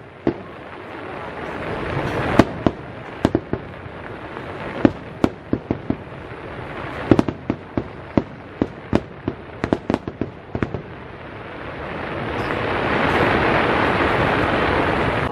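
Aerial firework shells bursting in a long series of sharp, uneven bangs. Near the end the bangs give way to a swelling wash of noise.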